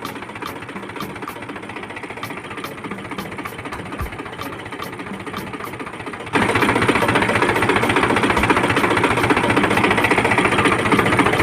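A small machine's motor running steadily with a regular rapid ticking. It gets much louder about six seconds in, then cuts off suddenly.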